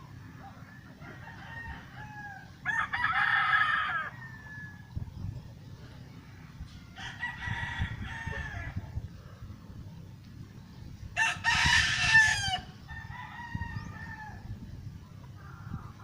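Roosters crowing: three loud crows about four seconds apart, the last the loudest, with fainter crows in between, over a steady low rumble.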